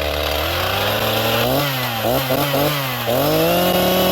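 Two-stroke chainsaw engine rising from idle about half a second in, revved in a few quick blips around the middle, then held at high revs for the last second.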